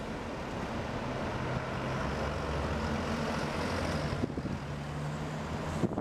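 Road traffic passing: a city bus and other vehicles, with a low engine hum and tyre noise that grows louder over the first few seconds and cuts off suddenly just before the end.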